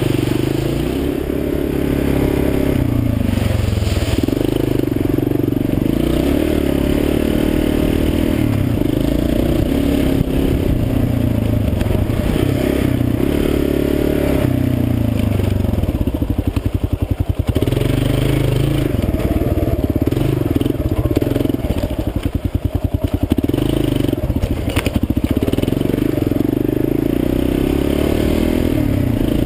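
Kawasaki KLR650's single-cylinder four-stroke engine pulling on a dirt trail, its pitch rising and falling with the throttle. About halfway through, and again a few seconds later, it drops to low revs with slow, separate firing pulses.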